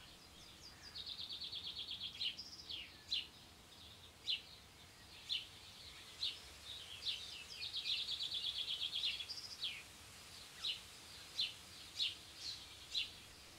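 A bird chirping: short sharp calls about once a second, broken by two rapid trills, one about a second in and one around eight seconds in.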